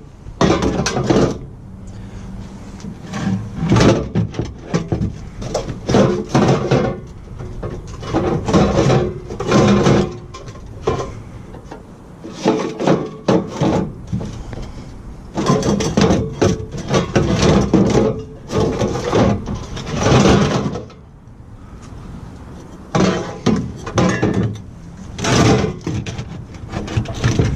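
Repeated irregular clattering and knocking as objects are handled and moved about, in bursts of a second or two with short pauses between.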